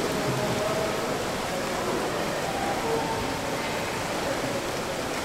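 Steady rushing water ambience, an even hiss with a few faint wavering tones under it.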